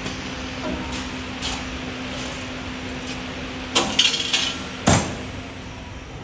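3D wire bending machine running: a steady motor hum with a few light clicks. A little under four seconds in the hum stops and a run of sharp metallic clacks follows, the loudest close to five seconds in.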